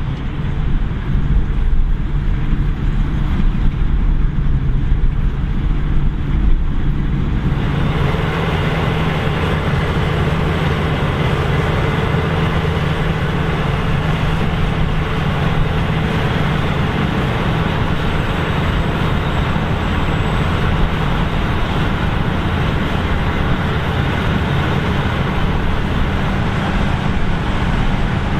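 Claas Lexion 770 combine harvester running steadily while harvesting, a constant engine hum. About seven seconds in, a fuller, hissier mechanical noise joins and holds.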